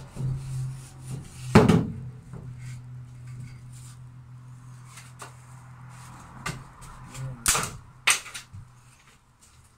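Wooden battens being handled and knocked against the frame: a sharp knock about a second and a half in, scattered lighter clicks, and two more sharp knocks near the end, over a steady low hum that fades away shortly before the end.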